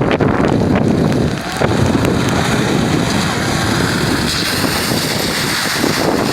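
Strong wind rushing across the microphone, a loud, steady rumbling noise.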